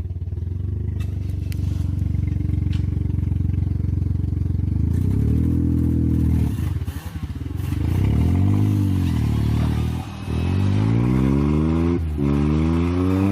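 Opel Corsa's engine running steadily, then revved up and down twice, then climbing in pitch under acceleration, with a short drop about twelve seconds in before it climbs again, like a gear change.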